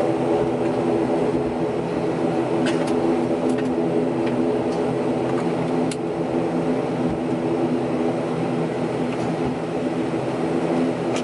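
Airliner engines heard from inside the passenger cabin while the plane taxis: a steady hum with several steady tones layered in it, and a few faint clicks.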